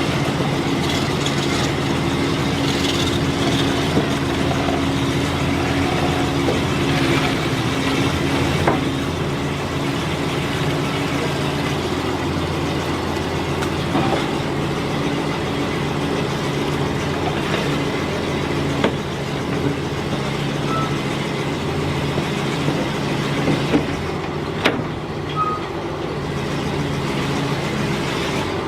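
The engine of a 1963 Landsverk L58 BR cable backhoe running steadily while the machine works. Its tone eases slightly about eight seconds in, and a few short sharp knocks come over it.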